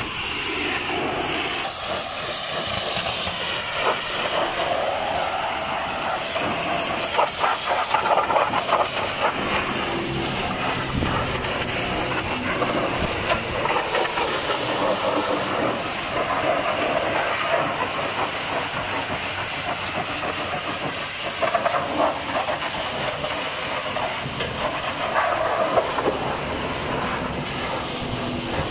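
High-pressure washer jet hissing steadily as it blasts mud off a tipper trailer's wheels and tyres, getting louder now and then as the spray hits the wheels up close.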